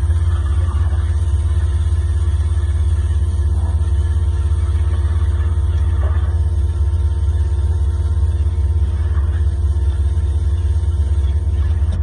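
Concrete line pump's engine running steadily with a loud, low hum, under the hiss of a hose nozzle spraying water into the pump's cylinder to wash out leftover concrete. The spray hiss cuts off at the end.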